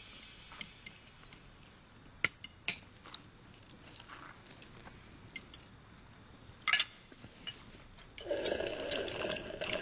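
Dinner-table clinks of cutlery, plates and glasses at intervals. About eight seconds in, a loud, drawn-out burp starts and keeps going.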